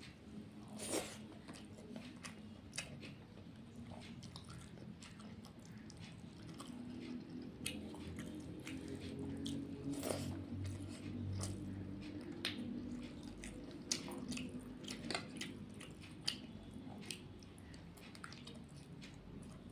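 Close-up eating sounds: a person chewing rice and fish curry, with wet mouth noises and many sharp smacking clicks.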